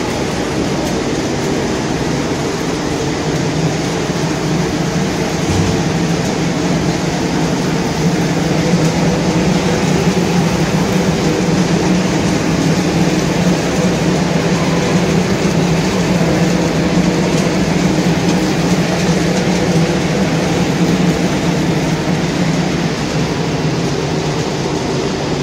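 Industrial hot-air popcorn production line running: the popping machine and its conveyor belts make a loud, steady mechanical rush over a constant low hum.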